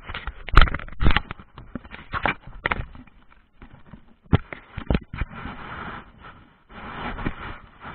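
A rider getting going with a saddled horse: irregular knocks, scrapes and rustling close to the microphone, with several sharp thumps in the first three seconds and a few more around four to five seconds in.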